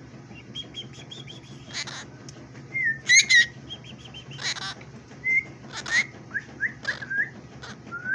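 Pet parrot calling: a few harsh squawks and one loud call about three seconds in, then a run of short, quick whistled chirps toward the end.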